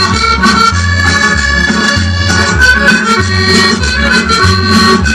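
Accordion-led dance music played loud through a sonidero sound system, the accordion melody over a steady repeating bass beat.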